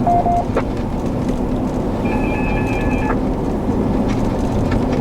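Steady low rumble and hiss, with two electronic tones from the ham radio: a short beep right at the start, just after a transmission ends, and a two-note tone held for about a second, starting about two seconds in.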